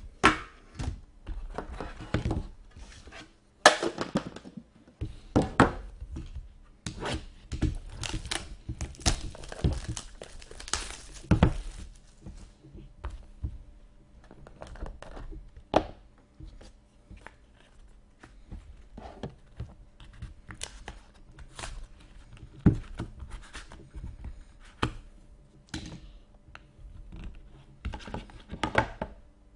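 A sealed trading-card box stuck to its tin being worked free and opened by hand: packaging being torn and crinkled, with knocks and clicks against the tin. Dense for about the first twelve seconds, then sparser handling sounds.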